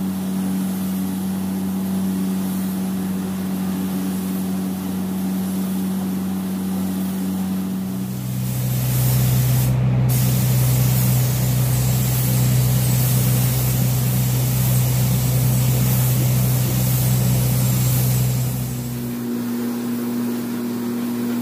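Compressed-air gravity-feed paint spray gun hissing as paint is sprayed onto car body panels, louder for a stretch in the middle. Under it runs a steady low machine hum that changes pitch about eight seconds in and again near the end.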